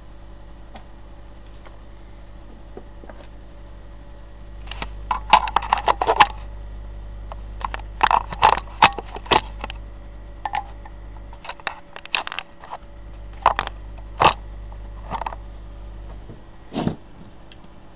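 Handling noise as the camera is propped up and the opened battery pack is moved about on the workbench: bunches of sharp clicks and knocks, about five to ten seconds in and again around twelve to fifteen seconds, over a steady low hum.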